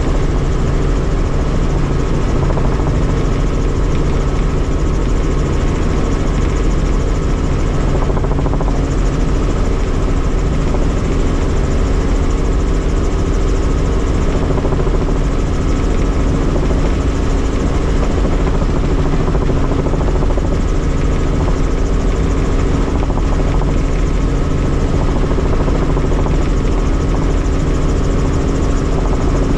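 Helicopter in flight: engine and rotor running steadily and loudly, several constant tones over a dense roar, with no change in pitch or level.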